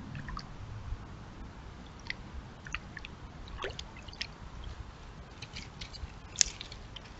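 Raccoon wading and foraging in a shallow pool, its paws splashing and squishing in water and mud, with scattered small drips and clicks. A sharp, louder click comes about six and a half seconds in.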